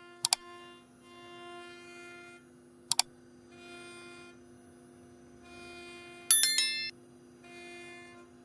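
Background music led by a bowed-string, violin-like melody in short repeating phrases over a steady low hum. Two sharp, bright ringing accents come early and about three seconds in, and a louder chiming flourish comes near the end.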